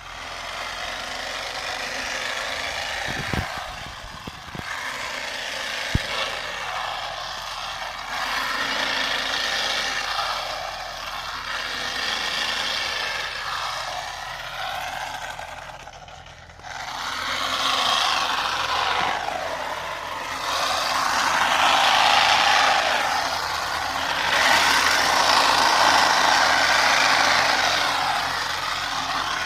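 Small engine of a motorised pennywort cutting machine running hard, its level swelling and falling as it cuts. A couple of sharp knocks come a few seconds in, and the sound drops away briefly a little past halfway before coming back louder.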